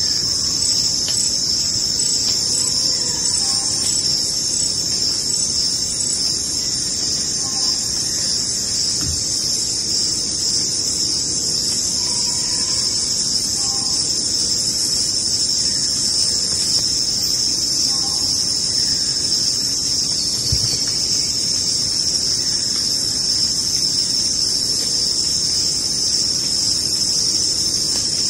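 Steady night-time chorus of crickets or other insects, an unbroken high-pitched chirring, with faint short calls every few seconds.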